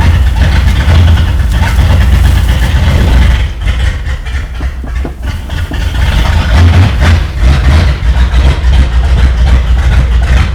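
1966 Ford Thunderbird V8 running loudly, its exhaust in need of replacement. The level drops for a couple of seconds about a third of the way in, then comes back up.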